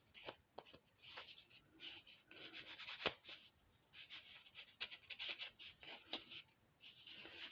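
Faint, irregular scratchy strokes of a small brush working patina onto a metal clasp, with a few light clicks, the sharpest about three seconds in.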